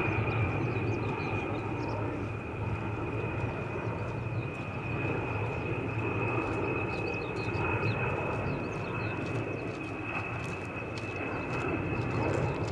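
Boeing B-52H Stratofortress's eight TF33 turbofan jet engines in flight: a steady drone with a thin, steady high whine on top.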